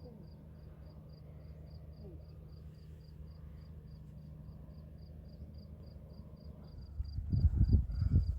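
Cricket chirping in a steady, high-pitched pulse train, about five chirps a second, over a low steady hum. Near the end, loud low rumbling thuds come in for about a second and a half.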